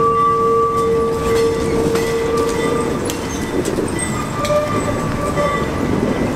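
Kawasaki R110A subway cars rolling slowly under tow, their steel wheels squealing against the rail in a steady high tone for the first few seconds, then again more briefly near the end. Underneath is a low rolling rumble with a few sharp clicks from the wheels over the track.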